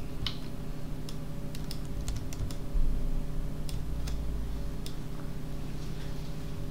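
Computer keyboard keys being pressed in scattered, irregular clicks as Blender shortcuts are entered, over a steady low electrical hum.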